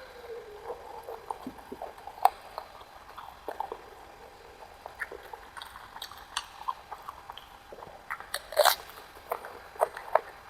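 Close-miked eating sounds: irregular wet mouth clicks, smacks and chewing as food is bitten and chewed, with one louder, noisier sound late on.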